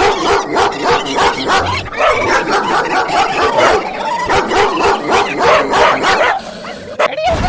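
Dogs barking and yelping, several calls overlapping in a continuous tumble that thins out about six seconds in.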